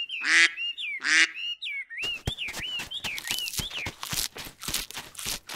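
A duck quacks twice over a high, warbling whistle-like tune, then, from about two seconds in, comes a fast run of sharp clicks.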